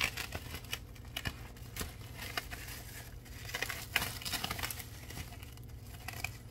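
A taped-up package being opened by hand: crinkling, rustling and tearing of packing tape and wrapping, with irregular sharp clicks.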